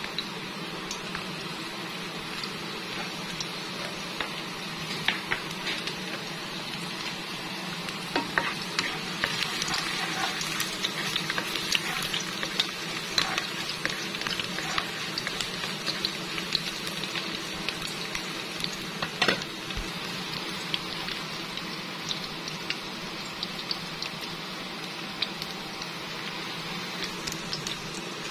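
Chopped garlic sizzling in hot oil in a frying pan, with many small crackling pops. A spatula stirs it, adding scrapes and a few sharper clicks against the pan.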